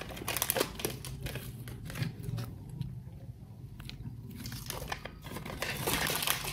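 Small plastic snack packet crinkling and crackling as it is handled in the hands, in short crisp bursts, thinning out in the middle and denser again near the end.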